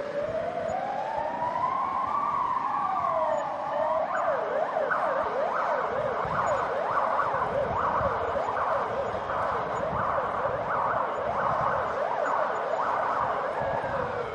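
Emergency vehicle siren over the low rumble of city traffic: a slow wail rising and then falling, switching about four seconds in to a fast, repeated yelp that keeps going.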